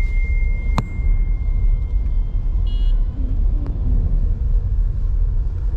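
Steady low rumble inside a Tata Harrier's cabin as it creeps through slow traffic on a flooded road. A faint, thin high tone runs through the first couple of seconds, and a sharp click comes about a second in.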